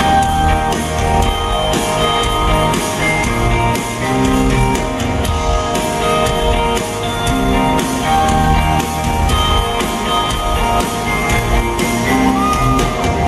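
Live rock band playing a song intro, led by keyboard notes over electric guitar, bass and drums, heard from the audience in a large hall with scattered crowd shouts.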